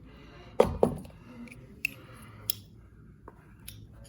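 Hand work on carpet at a floor edge: irregular sharp clicks and scrapes from a carpet hand tool, with one heavier thump about half a second in.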